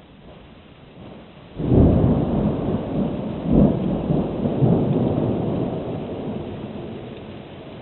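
Thunder from a nearby lightning strike: a sudden loud rumble breaks out about a second and a half in, rolls on with a few surges, then slowly dies away.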